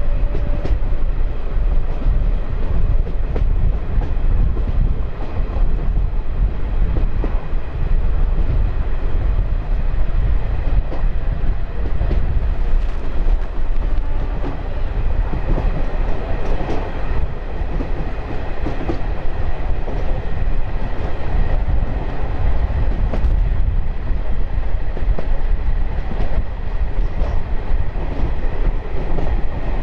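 DEMU (diesel-electric multiple unit) train running along the line, heard from on board: a steady heavy rumble with frequent sharp clicks of the wheels over the rails.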